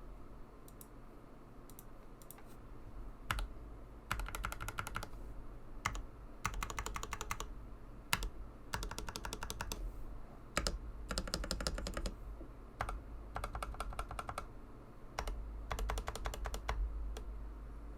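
Custom TM680 mechanical keyboard with Gateron Silver Pro linear switches being typed on: quick runs of rapid keystrokes about a second long, separated by short pauses and single sharper key presses.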